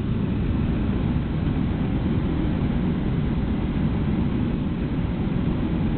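Steady low rumble of a car driving, with engine and tyre noise heard from inside the car.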